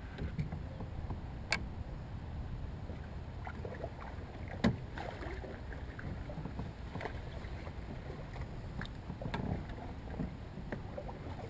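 Kayak being paddled through lily pads: water swishing with the paddle strokes, and scattered short knocks and clicks, the sharpest about four and a half seconds in, over a steady low rumble.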